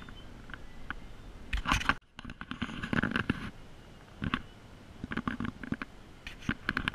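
Irregular knocks, scuffs and rustling close to a handheld camera's microphone, the noise of the camera being carried on foot; the sound cuts out briefly about two seconds in.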